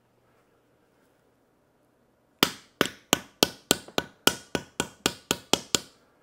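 A soft-faced mallet taps the friction-fit center cap onto a golf cart motor's electromagnetic brake housing. There are about thirteen quick, sharp knocks, roughly four a second, starting a little over two seconds in.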